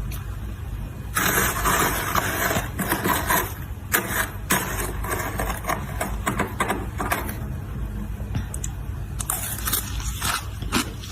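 Ice being bitten and chewed close to the microphone with crisp, brittle crunches: a dense run of crackling crunches from about a second in, then sparser single cracks, and another run of crunching near the end.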